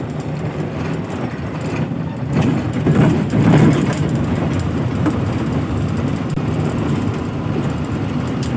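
Bus engine and road noise heard from inside the cab while the bus drives along, a steady low running sound that grows louder for a second or so about three seconds in.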